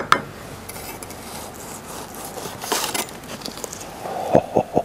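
Chef's knife slicing through a grilled roast beef on a wooden tray, with a couple of short scraping strokes. Near the end a rapid, even run of short low pulses begins, about six a second.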